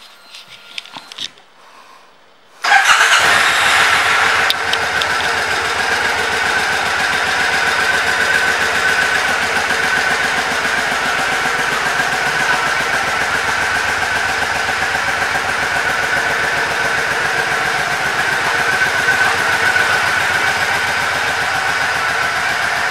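2012 Triumph Speedmaster's air-cooled 865 cc parallel-twin engine starting about three seconds in, louder for its first couple of seconds, then settling into a steady idle.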